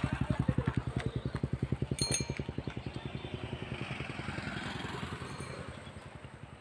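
An engine running with a rapid, even pulse, fading over the last couple of seconds. A brief metallic clink comes about two seconds in.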